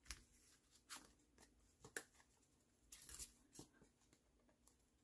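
Faint handling of card stock: a few soft taps and rustles as card pieces are pressed down and picked up on the work mat.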